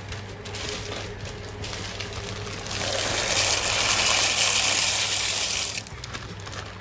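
Dry elbow macaroni poured into a pot of boiling water. Bubbling water with scattered ticks of pasta, then a louder hissing rush from about three seconds in that stops just before the end.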